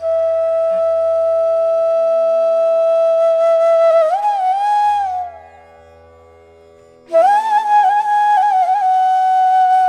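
Solo flute music over a faint steady drone. A long held note rises and bends about four seconds in, then fades. After a short gap, a higher melody returns with wavering ornaments.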